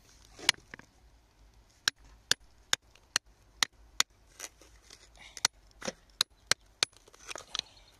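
A metal bar striking and chipping rock: a series of sharp taps about two to three a second, in two runs with a short pause between, with loose grit crumbling between the strikes.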